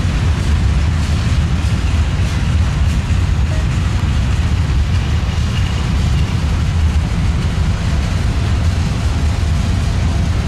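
Long freight train of covered hopper cars rolling past, a steady low rumble of steel wheels on the rails.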